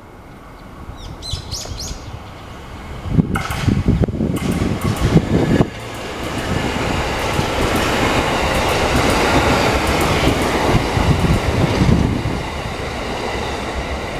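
Six-car E131 series electric multiple unit, two three-car sets coupled, passing close by: sharp clacks of wheels over the rails about three seconds in, then a loud steady rush of wheels on rail for most of the rest.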